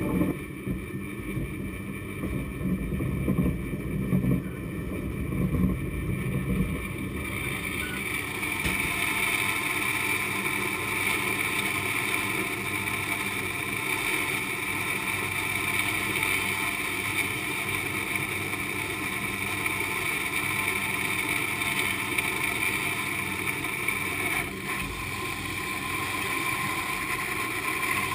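San Francisco cable car haul cable and grip machinery running in the underground slot as a car goes by at full speed: a steady mechanical rumble with a high whine. A deeper rumble in the first several seconds gives way to a higher, steady whine about seven seconds in.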